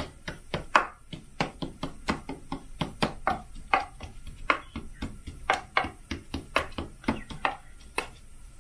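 Wooden spatula tamping a buttery crumb topping down into a metal baking pan: quick, irregular taps, about three a second.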